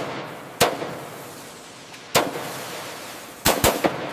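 Pneumatic rivet gun banging rivets into an aluminium hull seam: sharp metallic bangs, one about half a second in, another about two seconds in, and a quick burst of three near the end.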